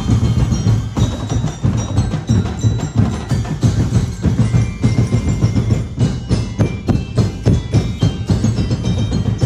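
Percussion-driven music accompanying a street dance: a fast run of drum strikes over a deep, steady bass, with ringing bell-like tones above.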